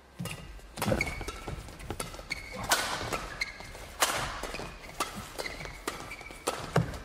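Badminton doubles rally: rackets hitting the shuttlecock in a string of sharp cracks about a second apart, with players' shoes squeaking on the court floor between shots.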